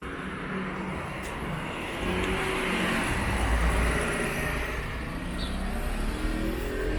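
Outdoor street ambience with a car passing. Its low engine and tyre rumble swells about halfway through, then eases.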